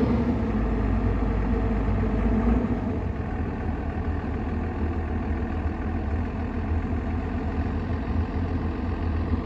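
Heavy diesel engine of earthmoving machinery running steadily, easing off after about two and a half seconds into an even low idle.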